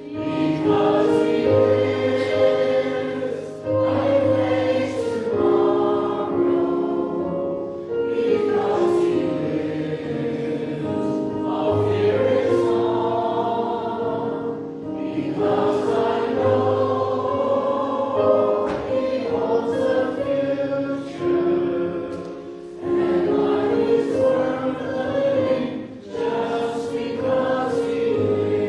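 Church choir singing a slow hymn or anthem in sustained phrases, with short breaths between lines.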